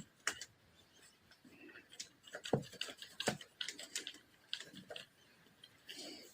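A series of light, irregular taps and clicks, a little busier about halfway through.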